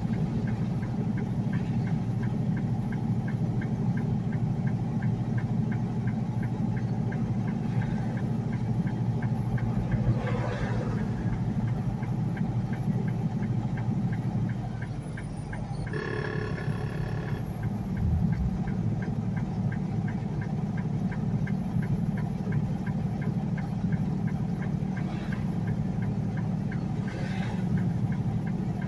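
Steady engine and road drone heard inside a semi truck's cab on the highway, with a fast light ticking that comes and goes. A short pitched tone sounds once, a little past the middle.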